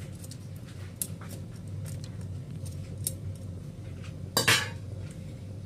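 Kitchenware clinking in a few sharp, scattered taps, then a louder brief clatter a little after four seconds in, over a steady low hum.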